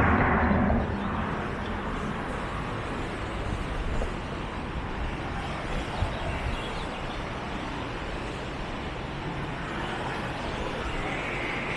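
City road traffic: a passing vehicle fades away within the first second, then a steady hum of traffic noise continues, with one sharp click about six seconds in.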